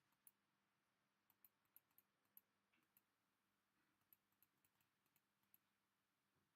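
Near silence, with faint, irregular clicks scattered over the first five and a half seconds.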